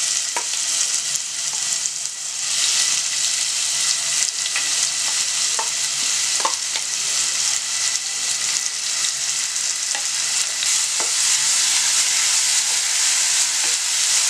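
Finely chopped onion, garlic, ginger, green chilli, coriander and mint sizzling in hot oil in a non-stick frying pan, a steady frying hiss that dips briefly about two seconds in and then grows louder. A few faint clicks are heard, and a wooden spatula stirs the mixture near the end.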